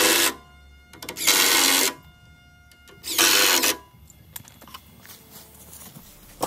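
Cordless impact driver driving deck screws into a wooden board in three short bursts, the last ending about four seconds in, followed by a few light handling clicks.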